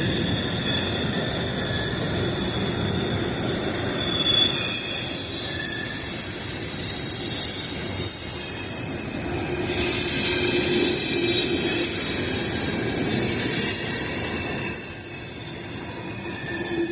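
Freight train cars rolling past with their wheels squealing: several high, shifting squeal tones come and go over a steady rumble of the cars.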